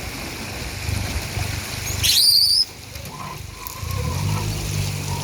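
Boat motor idling with a low steady hum that firms up near the end. About two seconds in comes a brief, loud, shrill high-pitched call or squeal.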